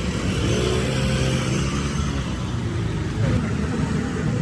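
A motor vehicle engine running steadily amid road noise, its pitch rising about half a second in and then holding.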